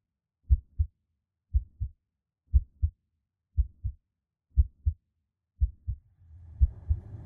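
Heartbeat sound effect: a steady double thump, lub-dub, about once a second. About six seconds in, a low steady rumble fades in beneath it.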